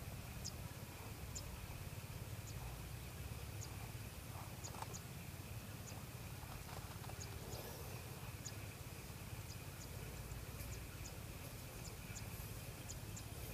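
Faint outdoor ambience: a low steady rumble of wind on the microphone, a thin steady high drone, and scattered tiny ticks.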